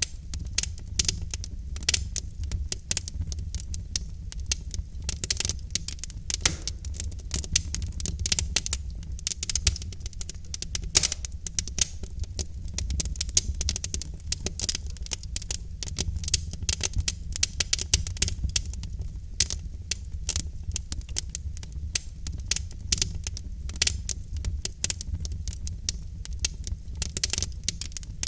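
Logs burning in a wood fireplace, crackling densely and irregularly with scattered louder pops over a low steady rumble.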